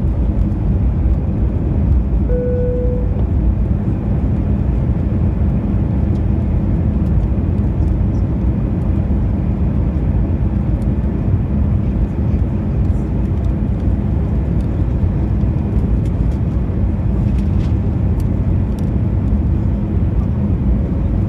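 Steady engine and airflow noise of an Airbus A320, heard inside the passenger cabin. A short, clear tone sounds once, about two seconds in.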